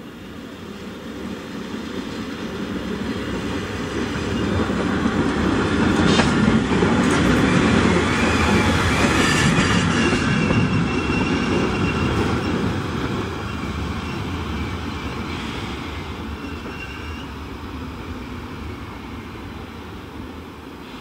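Rhaetian Railway Ge 4/4 I electric locomotive No. 605 passing close on metre-gauge track. A rising then fading rumble of wheels and running gear, with a few clicks over rail joints when it is loudest and a faint high wheel squeal later on.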